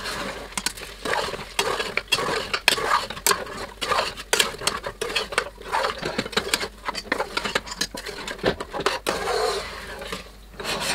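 A spoon stirring and scraping lamb pieces and masala around a pressure cooker pot, with irregular clinks and scrapes against the pot.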